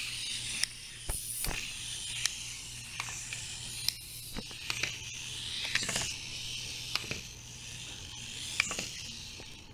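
Clockwork wind-up toy cars running, the spring motor whirring with a steady high buzz, broken by scattered sharp clicks as the toys tumble and flip over.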